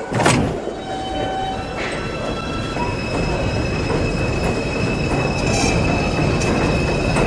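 New York City R142 subway train pulling out of a station. A sharp bang comes just after the start, then a steady rumble of wheels on track with high, steady squealing tones from the wheels and motors.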